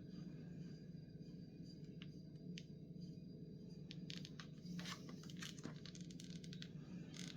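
Packaging being handled and torn open, a cluster of short crinkling, tearing sounds in the second half, over a steady low hum.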